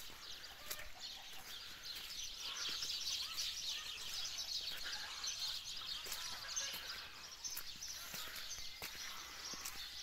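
Many small birds chirping and chattering together, a dense stream of short high chirps that grows busier a couple of seconds in.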